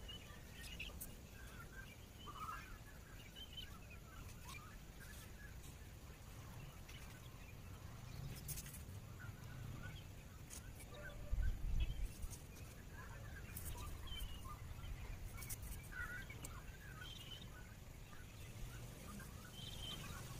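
Faint bird calls, short chirps scattered throughout, over quiet outdoor ambience. A few soft clicks and a low thump about halfway through come from tent poles and fabric being handled as a dome tent is pitched.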